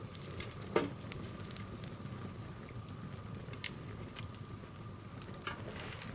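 Wood fire of a Swedish torch crackling, with scattered sharp pops and snaps over a low hiss, the loudest snap about a second in.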